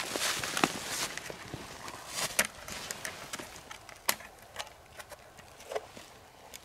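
A plastic trail camera strapped to a tree being handled, its case clicking sharply a dozen or so times at uneven intervals as it is worked open. Clothing rustles during the first second.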